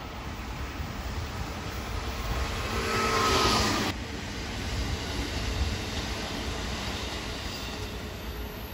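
Electric commuter trains running past on the rails: a steady rumble of wheels and running gear. About three seconds in it swells to a louder rush with a brief whine as a Meitetsu 3100 series train passes close, then drops off suddenly.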